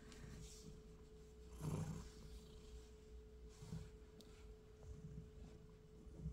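Faint rustling and soft thuds of a hand rubbing a cat's fur as it rolls on a wooden floor, the strongest rub about two seconds in, over a steady faint high hum.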